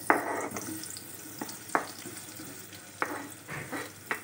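Sliced onions sizzling as they drop into hot oil in a pot, pushed off a cutting board with a wooden spoon. A steady hiss runs throughout, broken by four or five sharp knocks as the onions and spoon hit the board and pot.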